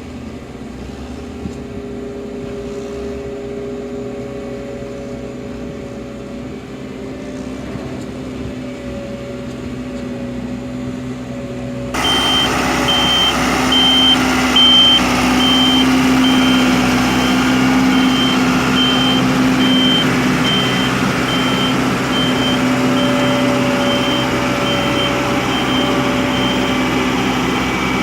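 Heavy vehicle engine running steadily. About twelve seconds in, the sound cuts to a louder engine with a reversing alarm beeping about once a second.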